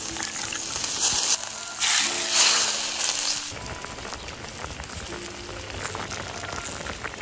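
A wide wok of spicy pork-intestine hotpot broth boiling hard, a loud bubbling hiss that softens about three and a half seconds in to a quieter crackle. Soft background music with held notes plays underneath.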